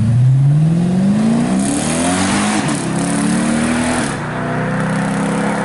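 Lexus IS F's 5.0-litre V8 accelerating hard away, its pitch climbing through the gears with a drop at each upshift, about two and a half and four seconds in, then steadier as the car draws away.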